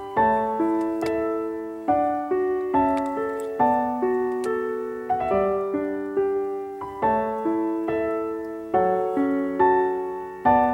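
Background piano music: a slow, gentle piano piece, each chord struck and left to die away.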